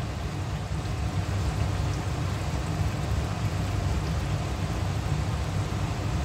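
Steady sizzle of turnip and mutton bhujia frying down in an open pressure cooker on a high flame, over a low, even rumble.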